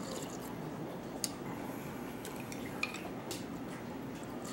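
Metal spoon clinking against a soup bowl while eating: two sharp clinks about a second and a half apart, with a few fainter ticks, over steady room noise.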